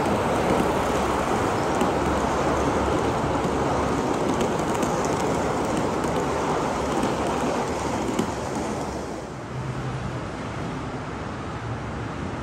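Gauge 1 model passenger train, an electric locomotive pulling blue coaches, running over the layout's track: a steady rolling rumble of wheels on rail that drops off somewhat about nine seconds in.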